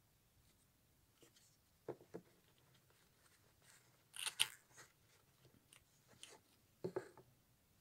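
Faint handling sounds of a small Pandora cardboard jewellery box and its velvet charm insert: scattered soft taps and rustles, a dull knock about two seconds in and again near the end, and the sharpest clicks about four seconds in as the insert is pressed down into the box.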